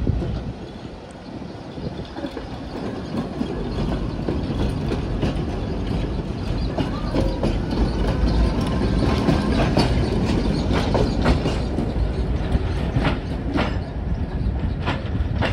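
Tatra tram running on its rails, growing louder over the first several seconds. In the second half come a series of sharp wheel clacks over rail joints and points.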